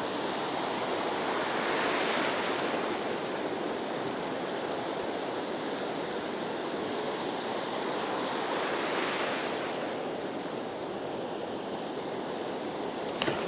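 Ocean surf breaking and washing on a sandy beach: a steady rushing noise that swells about two seconds in and again around nine seconds.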